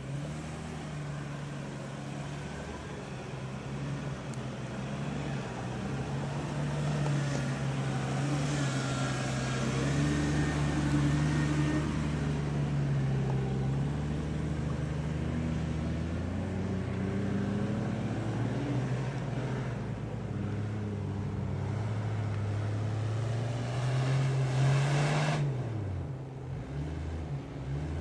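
Jeep Grand Cherokee engine working under load on a sandy off-road slope, its note rising and falling with the throttle; near the end the revs drop and pick up again several times.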